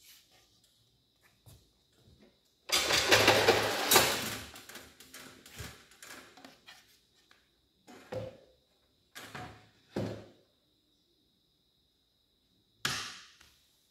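A plywood panel handled against a steel tool-table frame: a loud stretch of handling noise lasting nearly two seconds about three seconds in, then four separate knocks as the panel is fitted onto the frame.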